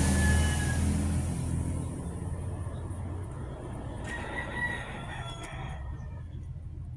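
A rooster crowing: one crow at the start and another about four seconds in, over a low rumble like a passing vehicle that fades after the first second or two.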